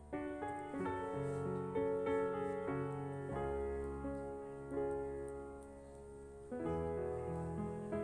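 Background piano music: a melody of single notes over held chords.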